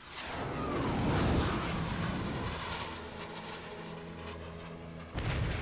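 Animated sound effect of an SR-71 jet aircraft roaring as it dives, with a falling whoosh in the first second. The roar gets suddenly louder about five seconds in.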